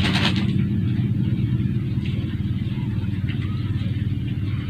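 A steady low mechanical hum runs throughout. Over it, faint crinkling comes from a glove wrapper and gloves being handled, loudest in the first half-second.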